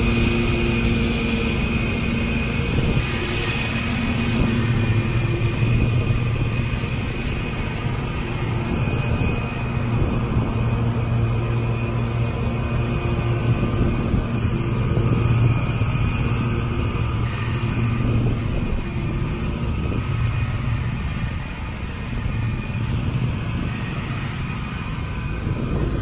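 Exmark Turf Tracer 48-inch walk-behind mower running steadily while mowing, a continuous engine hum whose loudness rises and falls a little as the mower moves across the lawn.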